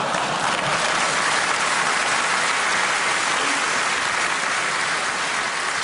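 Live audience applauding steadily, easing off a little near the end.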